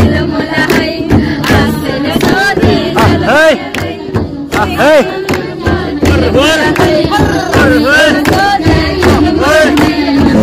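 A group singing together to the beat of damphu, the Tamang frame drum, with hand claps and sharp drum strikes throughout.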